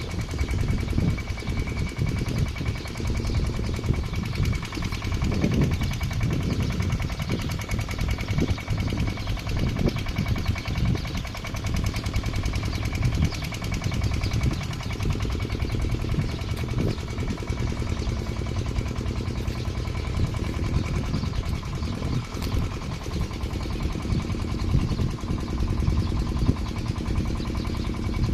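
Irrigation pump engine running steadily at a constant speed, with a fast, even beat.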